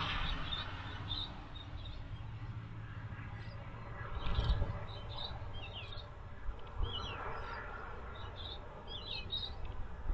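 Small birds chirping: scattered short calls and quick falling chirps, denser in the second half, over a low rumble on the camera microphone.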